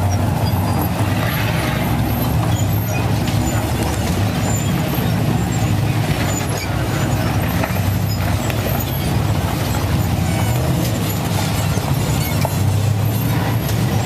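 Off-road rock-racing cars' engines running loudly as they crawl up a boulder climb, the engine sound swelling and easing, strongest about eight seconds in and again near the end.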